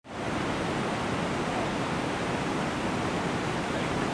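Steady rushing of a river in flood, an even, unbroken water noise with no separate events.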